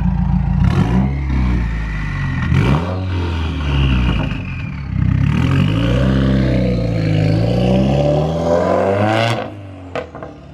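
Straight-piped 2015+ Subaru WRX turbocharged flat-four engine pulling under acceleration. Its pitch drops sharply twice early on at gear changes, then climbs steadily for several seconds before falling away near the end.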